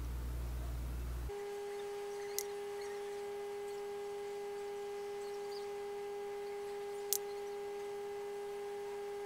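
Steady electrical hum. A low hum gives way, about a second in, to a steady mid-pitched tone with a fainter higher tone above it, and two brief faint clicks come in the middle.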